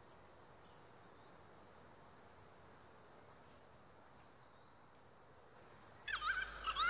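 Very quiet outdoor ambience with a few faint, high chirps. About six seconds in, a short burst of louder warbling bird calls sets in, with a low hum under it.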